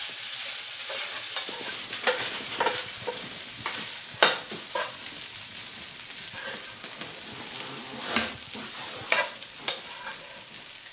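Fried rice sizzling in a nonstick frying pan as it is stirred and tossed with a plastic spatula: a steady sizzle broken by sharp scrapes and taps of the spatula against the pan, the loudest about four seconds in.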